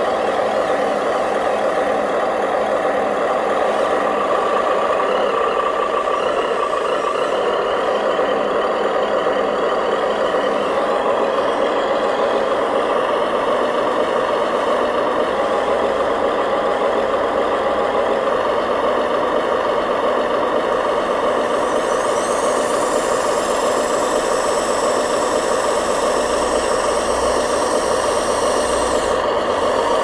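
Remote-control three-axle dump truck running with a steady, dense engine-like noise. About three quarters of the way through, a high whine rises in pitch, holds, and then cuts off sharply as the tipper bed is raised.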